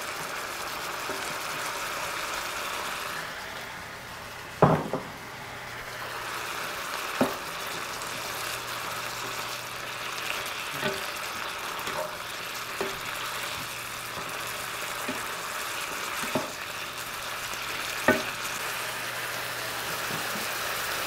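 Chicken and vegetables sizzling steadily in a hot pan as they are stirred, with a handful of sharp knocks of the utensil against the pan, the loudest about five seconds in and again near the end.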